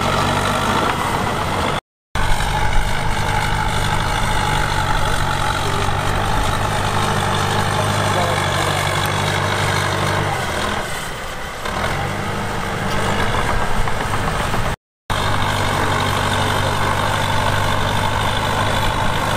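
Heavy diesel engine running steadily, easing off briefly about eleven seconds in. The sound cuts out completely for a moment twice, about two seconds in and again near fifteen seconds.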